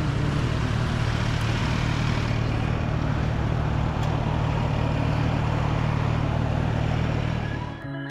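Honda PCX 125 scooter's single-cylinder engine running at a steady speed, an even hum under wind and road noise; it fades out near the end.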